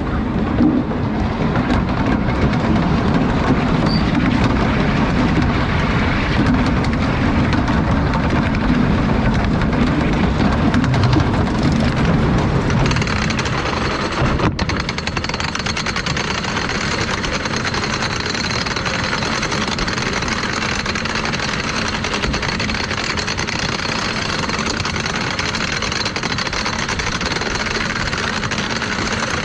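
Lightning Racer wooden roller coaster train rolling and rumbling over the wooden track, then, about 13 seconds in, catching the lift hill chain and climbing to the chain's steady rattle.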